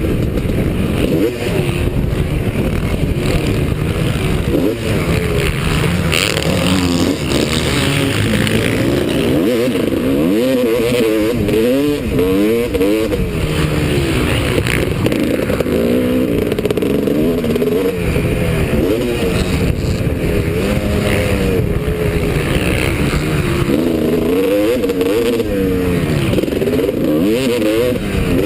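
Several motocross bikes racing, their engines overlapping as each revs up and drops back again and again through gear changes and braking.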